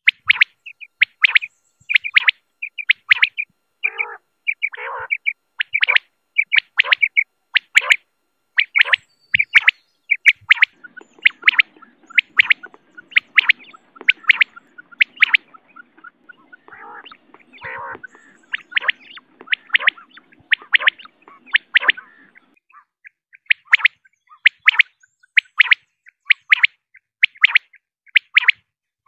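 Quail calling over and over: short, sharp, high notes that come in quick clusters of two or three, with a few lower, hoarser notes about four and five seconds in.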